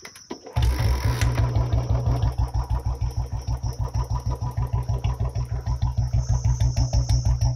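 Royal Enfield Bullet Standard 350's single-cylinder engine kick-started, catching about half a second in and settling into a steady 'dug dug' idle, an even beat of exhaust thumps through a short bottle silencer with bend pipe.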